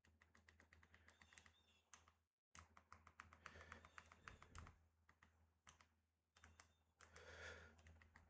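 Faint, rapid clicking of buttons being pressed, several clicks a second, over a steady low hum.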